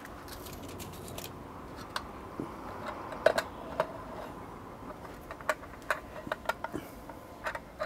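Scattered light clicks and taps as cookware is handled: a foil-covered tray lifted off a wooden cutting board and a stainless steel tray brought in, over a faint steady background hiss.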